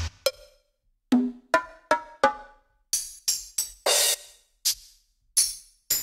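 Electronic 80s-style drum and percussion samples from the ReFX Nexus 2 software synthesizer, played as single separate hits. A few short pitched percussion hits come first, then bright cymbal- and hi-hat-like hits, each dying away quickly.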